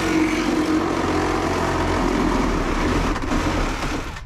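A motor-driven power tool running at a steady pitch, then cutting off sharply near the end.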